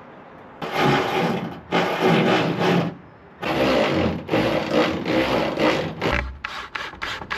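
Wood scraping in repeated strokes: several long strokes of about a second each, then a quick run of short ones near the end.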